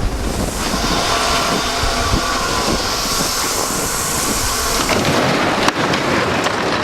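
Steady rumble and rushing noise of a vehicle on the move, with a brief click near the end.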